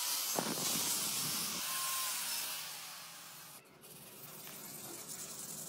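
Angle grinder grinding a steel knife blank clamped in a vise: a loud hissing rasp that fades after about three seconds, then a quieter scraping noise.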